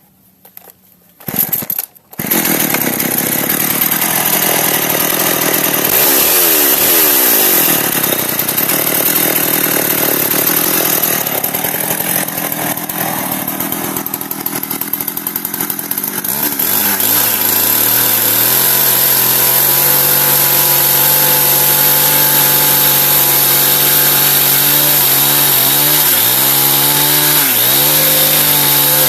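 Husqvarna 365 two-stroke chainsaw starting up about two seconds in after a few short sputters, then running loud with its revs rising and falling; in the second half the engine note steadies, dipping briefly a couple of times near the end.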